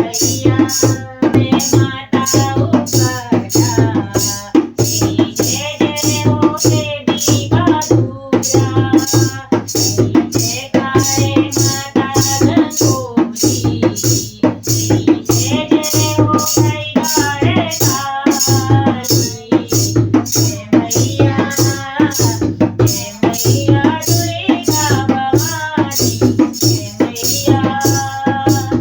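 Background music: a song with a voice singing over a steady shaker-and-drum beat.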